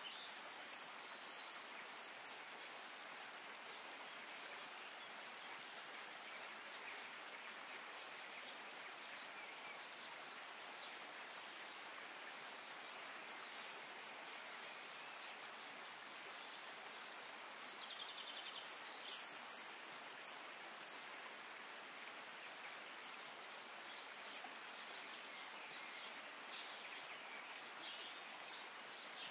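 Faint, steady outdoor ambience hiss, with clusters of short, high, rapid chirping trills near the start, in the middle and near the end.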